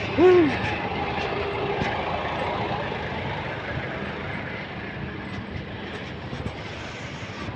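Steady outdoor vehicle and traffic noise around a parking lot. A short pitched sound that rises and then falls stands out about a quarter second in.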